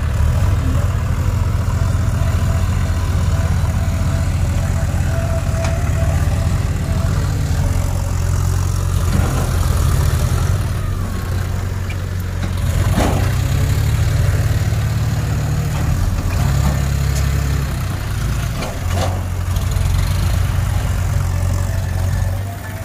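John Deere 5045D tractor's three-cylinder diesel engine running steadily while the hydraulic tipping trailer is raised to dump soil, with a few short knocks near the middle.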